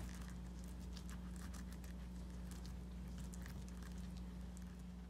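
Spoon spreading tomato ketchup over an egg chapati on a plate: faint, scattered soft scrapes and light ticks over a steady low hum.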